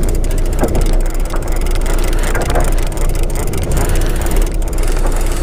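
Sport-fishing boat's engine running with a steady low rumble and hum, while a conventional fishing reel is cranked with fast, even ticking as a hooked fish is reeled up.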